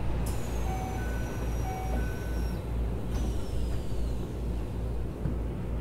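Inside a Keikyu New 1000 series train car standing at a station: a steady low rumble, with a two-note electronic chime (a low note then a high note) sounding twice. Two thin, high whistling tones start suddenly and slide downward in pitch.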